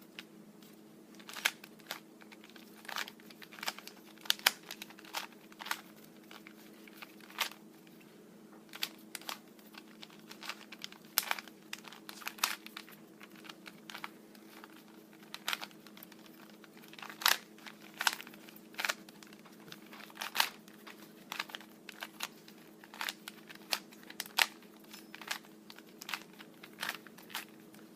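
3x3x3 Rubik's Cube being turned by hand: irregular plastic clicks and clacks as the layers snap round, in quick runs with short pauses. A faint steady hum lies underneath.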